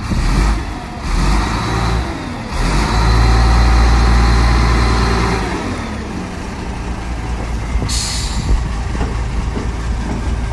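A heavy machine's diesel engine revving up, held at high revs for about three seconds, then dropping back toward idle. About eight seconds in there is a short hiss of released air.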